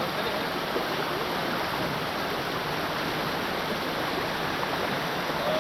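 River water flowing, a steady even rush with no splashes standing out.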